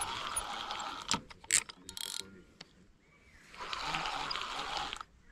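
Spinning fishing reel being cranked to wind in line, a whirring gear noise in two spells with a few sharp clicks and knocks between them.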